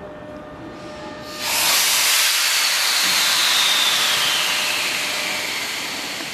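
A loud compressed-air hiss from the stationary passenger coach's air brakes starts suddenly about a second and a half in. A whistling tone inside it falls steadily in pitch as the hiss slowly dies away. It is typical of the brakes releasing before the train pulls out.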